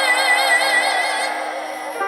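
Trot song backing music: a long held melody note with a wide vibrato fades out a little over a second in, over steady sustained chords.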